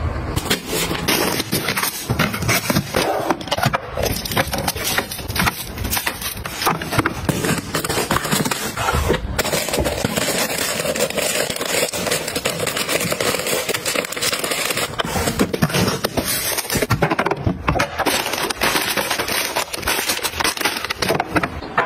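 Plastic snack packets and wrappers crinkling and rustling as they are handled and packed into storage, with scrapes and light taps throughout.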